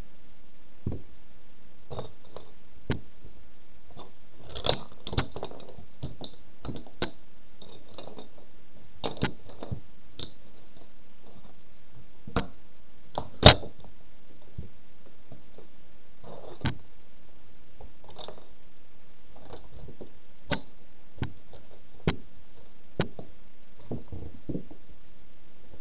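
A toy race car being crushed underfoot by platform high heels: irregular sharp cracks and crunches of the toy breaking, with one much louder snap about halfway through.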